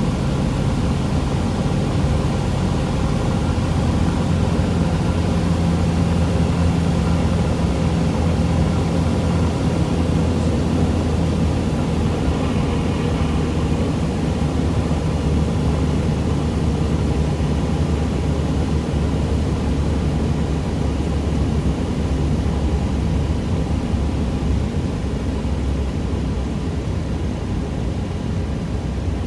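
Cessna 172's piston engine and propeller running steadily in flight, heard from inside the cabin under a constant hiss of airflow.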